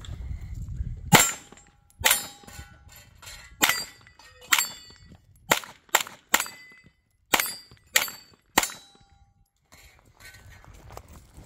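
Pistol-caliber carbine firing about ten shots at an uneven pace, some in quick pairs, while steel targets ring briefly as they are hit. The string stops a little over two-thirds of the way through.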